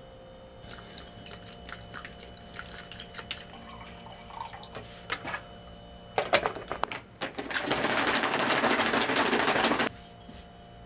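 Plastic packaging handled with light crinkles and clicks, then a few sharp clicks about six seconds in, followed by water poured steadily into a plastic pouch of Magcorol P powder for about two and a half seconds, stopping suddenly: the bowel-prep solution being made up.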